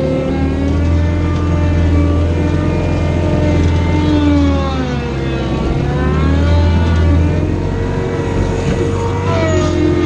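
ASV tracked skid steer's engine and hydraulic drive running under load, heard from inside the cab. The pitch sags about five seconds in and climbs back up.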